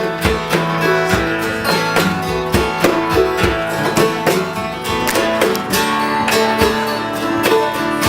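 Acoustic string band playing an instrumental break: a strummed acoustic guitar keeps a steady rhythm under sustained plucked-string notes.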